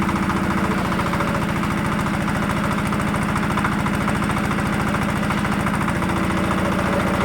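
Engine of a TY50 geological survey drilling rig running steadily at an even speed, with a fast, regular beat.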